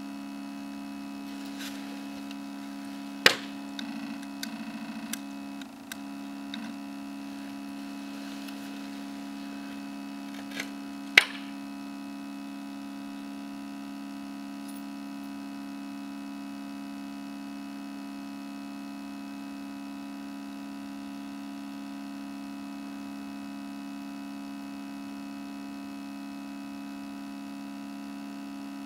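A steady low electrical hum, with a few sharp clicks in the first dozen seconds, the loudest about three and eleven seconds in.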